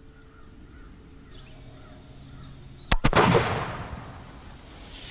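A single shot from a Remington Model 1858 New Army .44 cap-and-ball revolver loaded with black powder, about three seconds in, followed by an echo that dies away over about a second.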